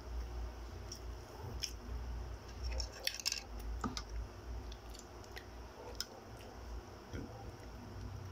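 Quiet eating sounds at a table: chewing and scattered small clicks and taps, with a quick cluster of sharp clicks about three seconds in, over a steady low hum.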